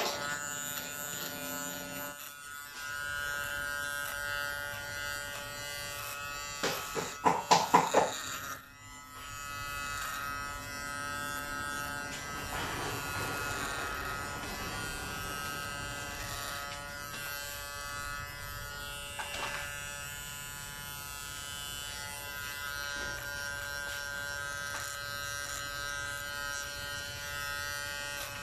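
KM-719 electric hair clipper running with a steady buzz as it cuts hair at the side of the head. A short run of louder pulses comes about seven seconds in.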